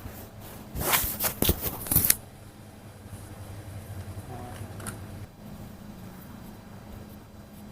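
Hands and clothing rustling and rubbing against the patient's body during hands-on abdominal treatment: a flurry of short scratchy sounds for about a second and a half, then only a low steady hum.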